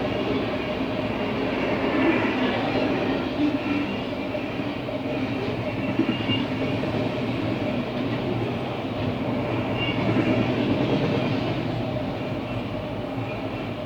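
CSX freight train passing at speed, its cars rolling by with a steady rumble and rattle of wheels on rail, and one sharp knock about six seconds in.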